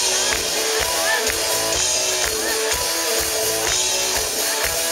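A rock band playing live and loud: electric guitar, bass guitar and drum kit, with a steady beat.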